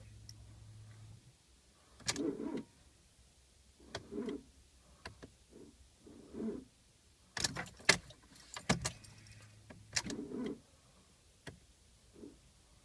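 A car key and keyring jangling at the ignition, with short bursts about every two seconds and a run of sharp clicks near the middle. No engine catches: the 2003 Fiat Punto 1.2 16V will not start at −34 °C on a low battery. A steady low hum stops about a second in.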